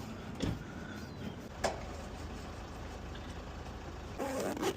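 A few light clicks and knocks, two sharp ones in the first couple of seconds and a short rustling clatter near the end, over a steady low background hum.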